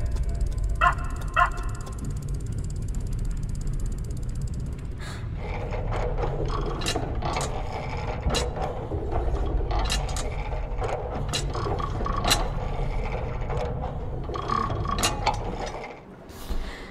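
Clockwork machinery clicking and ratcheting over a steady low rumble, with two short squeaky chirps about a second in; from about five seconds in, irregular sharp ticks and clicks come thick and fast, easing off near the end.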